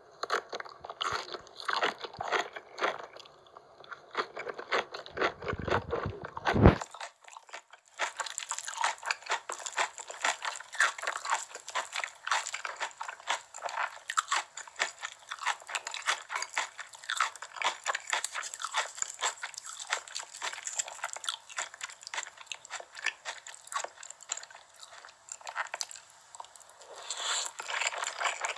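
Close-miked mukbang eating: crisp, repeated crunching from biting into and chewing fried chicken. About a quarter of the way through, a low thud is followed by a second of quiet, and then the crunching goes on steadily.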